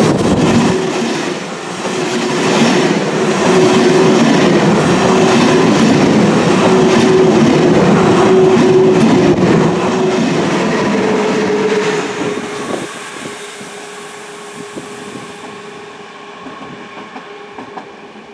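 ÖBB Railjet passenger train passing close by, its coaches rumbling and clattering over the rail joints with a steady whine running through the noise. About twelve seconds in the sound drops away and continues much fainter.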